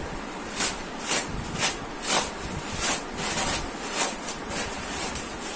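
Crinkly silver packing wrap rustling and crackling in a string of short bursts, roughly two a second, as it is pulled off a bicycle suspension fork.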